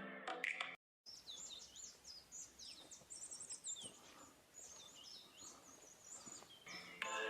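Forest songbirds calling: many short, high chirps and quick trilled phrases, in runs one after another, over faint outdoor background hiss.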